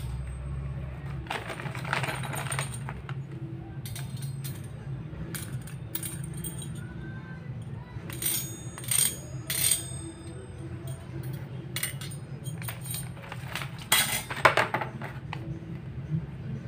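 Steel sprockets of a mountain-bike cassette clinking and tinking as they are handled, with short sharp metallic clicks throughout, louder clusters about eight to ten seconds in and again around fourteen seconds.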